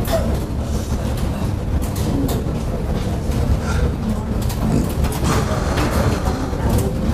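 Steady low rumble of room background noise, with scattered faint clicks.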